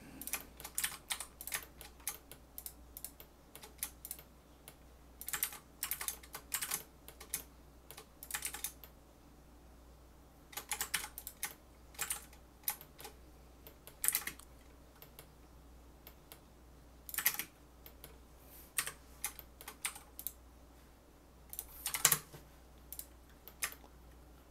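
Computer keyboard keys tapped in short, irregular clusters, over a faint steady fan hum.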